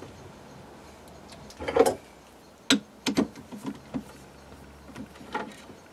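Short metallic clicks and knocks from hand work at a lathe chuck, with one longer, louder rattle about two seconds in and a quick cluster of clicks about three seconds in.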